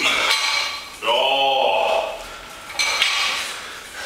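Loaded barbell with bumper plates clanking and rattling as it is cleaned and set back down on the floor, the metal sleeves and plates ringing briefly after each knock. A short grunt from the lifter about a second in.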